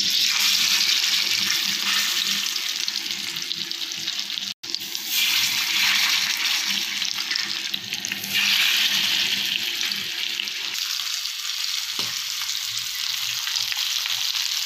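Marinated Indian mackerel (bangda) frying in oil on a hot iron tava: a steady, loud sizzle that swells at the start and again about five and eight seconds in, as fish go onto the hot oil.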